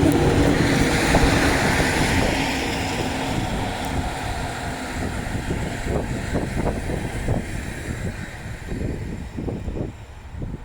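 Train of locomotives, four Vossloh DE 18s behind a Class 181 electric locomotive, rolling past, with a run of wheel clacks over the rail joints as the last vehicles go by. The noise fades away toward the end.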